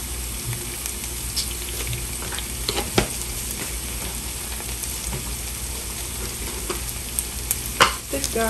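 Oil sizzling gently in a nonstick frying pan around ginger and scallions, with a couple of sharp clicks. The pan is cooking on the stove's leftover heat with the burner turned off.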